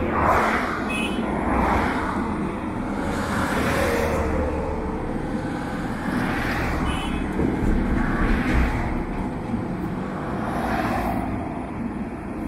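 Heavy vehicles and road-building machinery running, the noise swelling and fading every couple of seconds.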